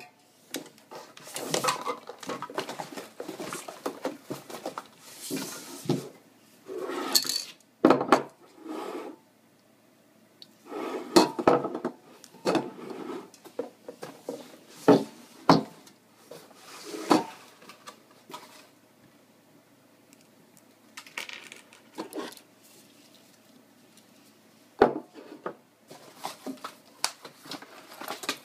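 Montana graffiti spray-paint cans being handled, clinking and knocking against each other and the surface in irregular bursts, with rustling between.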